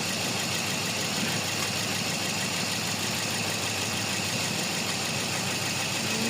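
Toyota Vios four-cylinder engine idling steadily while misfiring on cylinder 4, the fault logged as code P0354 (ignition coil 4 circuit).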